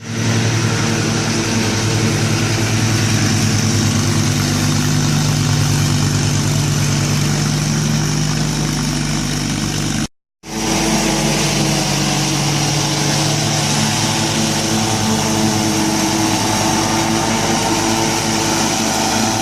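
Riding lawn mower engine running steadily. The sound cuts out completely for a moment about ten seconds in, then resumes unchanged.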